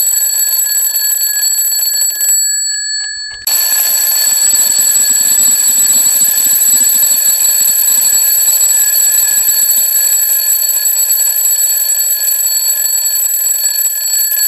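Twin-bell mechanical alarm clock ringing loudly, its hammer rattling between the two metal bells. The ringing dies away about two seconds in and starts again sharply about a second later.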